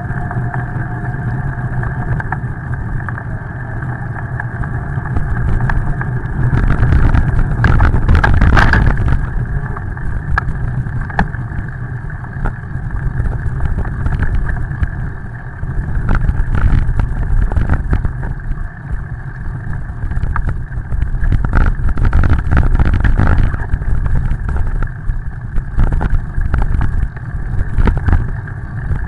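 Rumbling wind noise on a bicycle-mounted camera's microphone during a ride on wet pavement, with tyre hiss and scattered knocks from bumps in the road. It swells louder twice, briefly around a quarter of the way in and for a longer stretch past the middle.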